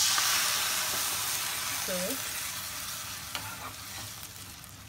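Water hitting a hot pan of roasted vermicelli and vegetables and sizzling loudly, starting suddenly and slowly fading, while a wooden spatula stirs.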